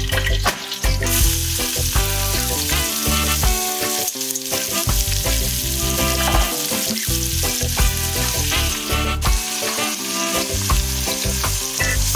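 Food frying and sizzling in a hot pan as it is stirred, with background music playing throughout.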